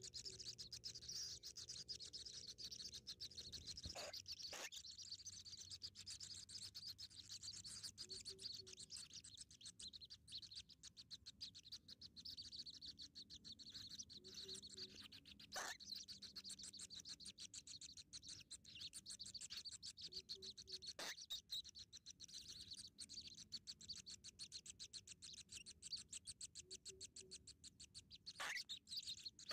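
Faint, fast high-pitched chirring of small animals. A short low call comes about every six seconds, with a few soft clicks.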